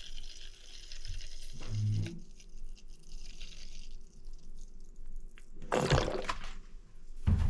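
Rinse aid being poured from a bottle into a Miele dishwasher's rinse aid reservoir, a steady trickling pour lasting about three and a half seconds. A couple of handling knocks follow near the end.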